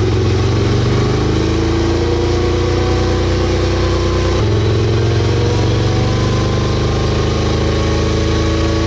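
V-twin cruiser motorcycle engine run hard under load on a dyno, its pitch climbing steadily. There is a brief break about four and a half seconds in, and then the pitch climbs again.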